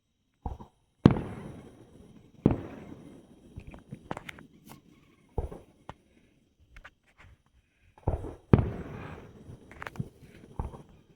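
Aerial fireworks bursting: a string of sharp booms, each trailing off in a rumble, with smaller pops and crackles in between. The loudest bang comes about a second in, and another big one about eight and a half seconds in.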